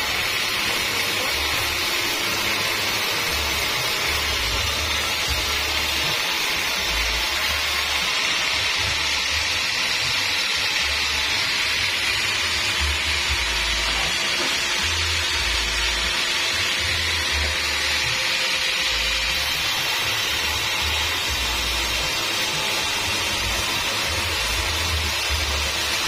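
Homemade band sawmill running with its blade cutting lengthwise through an acacia mangium log: a steady, even sawing noise that holds without a break.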